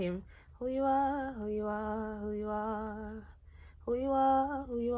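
A woman singing without clear words, two long held phrases with a slight vibrato, each stepping down to a lower note partway through.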